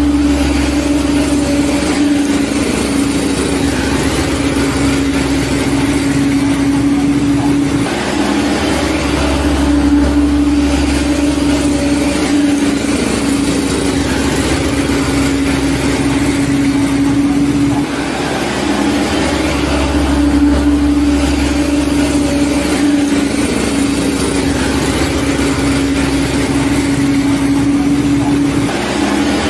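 Truck engine running steadily, a dubbed sound effect whose pattern repeats about every ten seconds.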